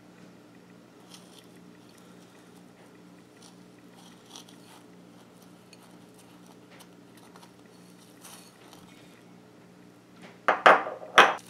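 Faint crackling rustle of crushed hard candy as a syrup-coated grape on a skewer is rolled through it in a bowl, over a steady low hum. Near the end come two loud sharp knocks about half a second apart.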